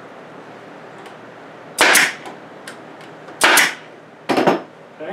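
Pneumatic nail gun firing three sharp shots, the last two closer together, driving fasteners into pine blocks.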